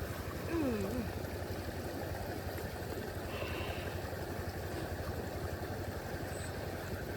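A small engine running steadily with a rapid, even low pulse. A short wavering tone sounds about half a second in.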